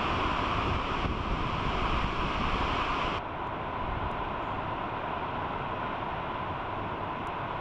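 Steady rushing of water overflowing a dam and cascading down its stepped concrete spillway. About three seconds in, the sound abruptly turns duller as its hiss drops away.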